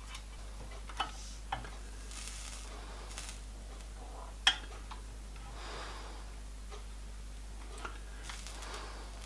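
A few light clicks and taps of small metal parts being handled at a clamped brass sheet joint, the loudest about four and a half seconds in, with a few soft rustles over a steady low hum.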